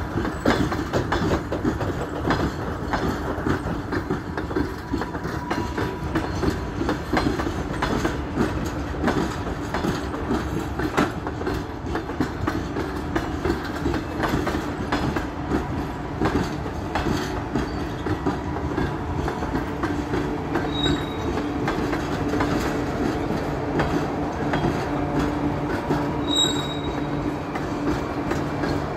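A passenger train's double-deck coaches rolling past, their wheels clicking steadily over the rail joints. Near the end there are two short, high wheel squeals.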